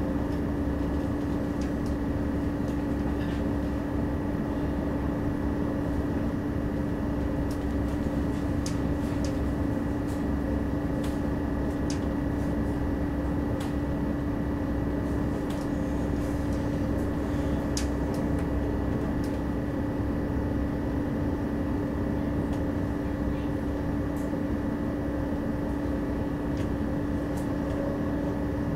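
Interior running noise of an Alstom Coradia Continental (DB class 1440) electric multiple unit at steady speed: a steady rumble with a held tone, and occasional light clicks.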